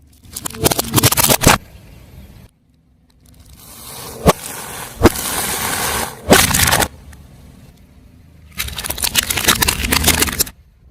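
Car tyre rolling over crunchy objects and crushing them: crackling and crunching in three separate bursts, the middle one with a few sharp cracks.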